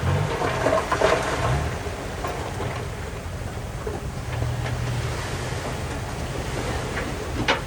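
Diesel engines of heavy earthmoving machinery running at a work site, with wind buffeting the microphone; the engine note swells about halfway through, and there is a sharp knock near the end.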